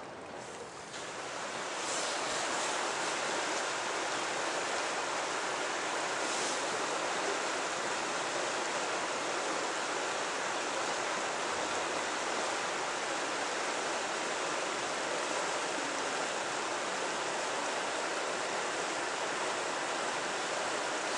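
Steady rushing of the Merced River's flowing water, swelling to full level about two seconds in.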